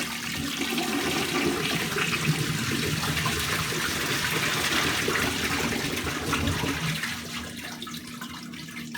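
1989 Universal-Rundle toilet flushing: water rushes from the tank into the bowl, easing off after about seven seconds into a quieter refill hiss. The flush fails to carry away a rag, which does not even make it past the trap opening.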